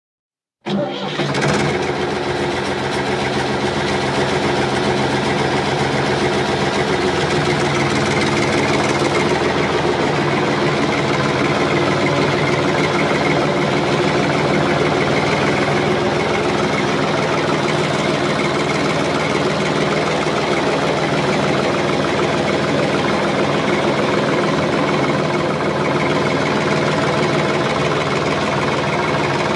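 Tractor engine running steadily at an even pitch, cutting in suddenly out of silence about a second in.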